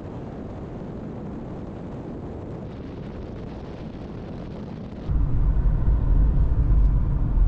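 A car driving along a paved road. At first there is an even hiss of tyre and wind noise, heard from a camera mounted on the outside of the car. About five seconds in it switches to a louder, low rumble of road noise inside the cabin.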